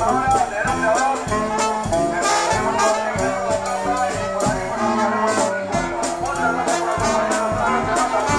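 Charanga street band playing live: trumpets and trombones carry a lively tune over a steady drum and cymbal beat.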